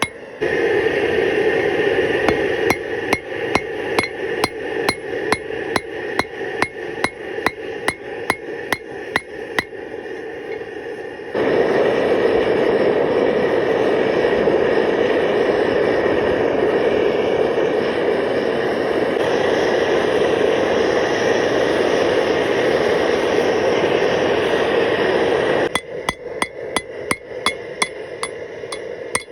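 Hammer blows forging the steel of a car connecting rod, about two to three ringing strikes a second, over a steady rushing noise. For the middle half the strikes stop and only a louder steady rushing noise remains; the hammering starts again near the end.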